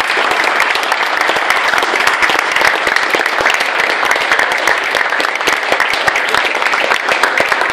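Applause: a roomful of people clapping their hands.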